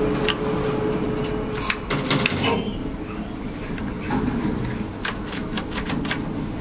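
Sharp clicks from the push buttons and relay controls of a 1990 Stahl relay-controlled traction elevator, with a quick run of clicks near the end. A steady hum stops about a second and a half in.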